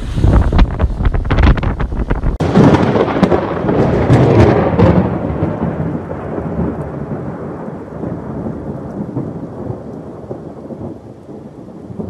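Rough wind buffeting the microphone. About two and a half seconds in it cuts to a loud thunderclap that rolls on and slowly fades away.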